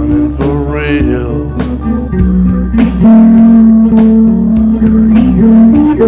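Electric guitar playing a bluesy line of long held notes over a steady drum beat of a little under two hits a second, with a sliding pitch bend about a second in.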